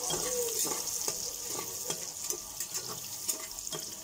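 Sliced onions sizzling in hot oil in an aluminium pressure cooker, frying toward brown, with a ladle scraping and knocking against the pot as they are stirred.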